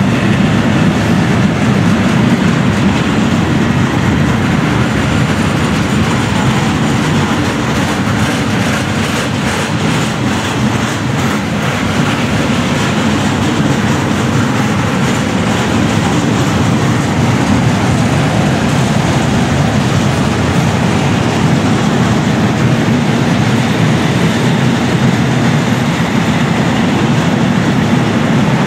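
Wagons of a long mixed freight train rolling past at speed: a loud, steady rumble of steel wheels on the rails with clattering over the track, a few sharper clicks about ten seconds in.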